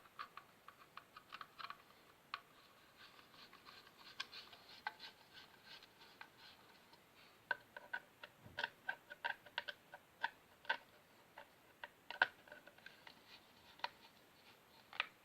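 Hand screwdriver driving the fixing screws of a plastic wall socket faceplate into the metal back box: faint, irregular clicks and ticks, in quick runs, with a few louder clicks in the second half.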